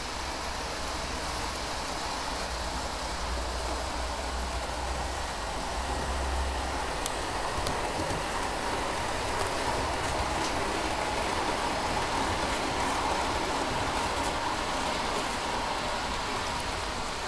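OO gauge model train running along the track, a steady mechanical running noise that gets a little louder from about seven seconds in as it passes close.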